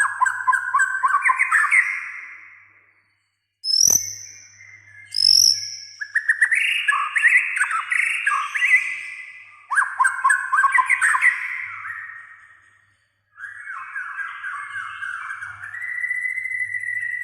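White-rumped shama singing: phrases of fast, varied warbled notes separated by short pauses, with two short high whistles around four and five seconds in and a held note near the end. A faint low hum runs underneath.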